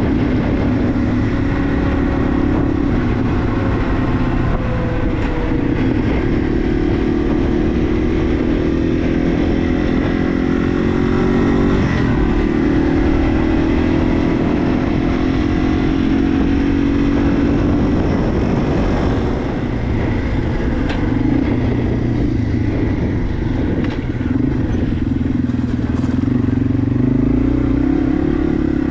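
2022 Yamaha TW200's air-cooled single-cylinder four-stroke engine running under way, its pitch rising and falling several times as the bike speeds up and slows.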